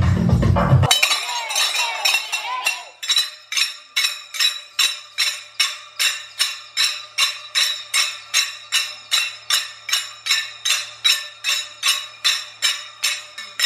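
Small metal hand cymbals clashed together by a group of folk dancers in a steady rhythm, about three strikes a second, each strike ringing on briefly. Recorded music cuts off about a second in, and the strikes settle into their even beat a couple of seconds later.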